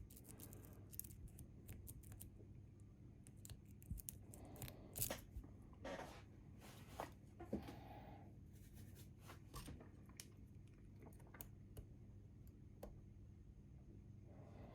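Faint scattered clicks and short metallic scrapes of lock-picking tools in a Bi-Lock cam lock as the pins are jiggled, a few louder scrapes coming in the middle, over a low steady hum.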